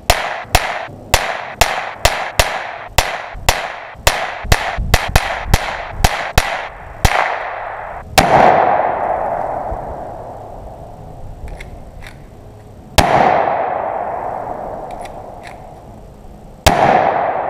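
Rapid gunfire, about twenty shots at roughly three a second, then three louder single blasts a few seconds apart, each followed by a long rolling echo.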